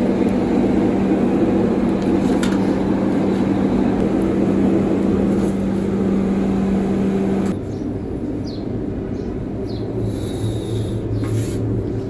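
Machinery running steadily with a constant hum. About seven and a half seconds in, it cuts abruptly to a quieter, different machine rumble with a few short high chirps.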